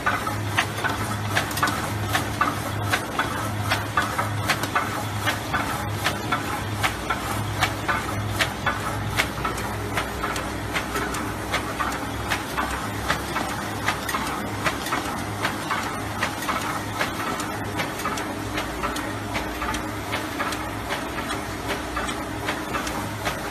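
QH 9905 cardboard tray forming machine running, a regular clatter of knocks about twice a second as it forms trays, over a steady low machine hum.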